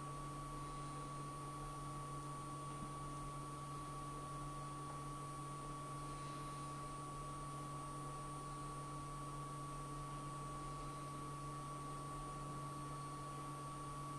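Steady electrical hum with a thin, steady high tone over it and no other sound.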